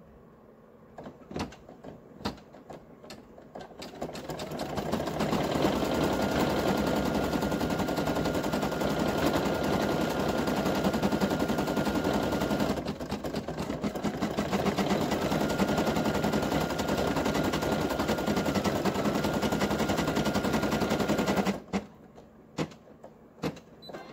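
Brother PE800 embroidery machine stitching: a few clicks, then a fast, steady run of needle strokes for about seventeen seconds, easing briefly about halfway, and stopping with a few more clicks near the end.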